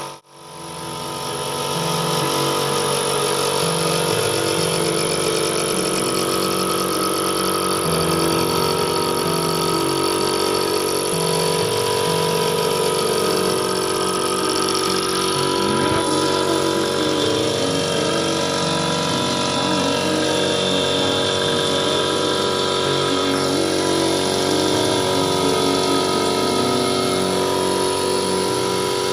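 Air compressor kicking on and running steadily, building tank pressure toward its factory cut-out setting of 120. It starts abruptly, comes up to full speed over about two seconds, then runs at an even pitch.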